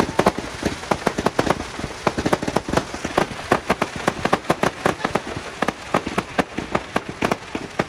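Fireworks display: a rapid, irregular barrage of sharp bangs and crackles from aerial shells, several every second without a pause.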